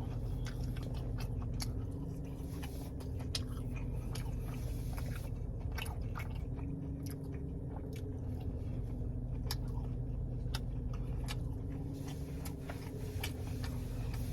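A man chewing fried popcorn chicken, with irregular crunches throughout, over a steady low hum.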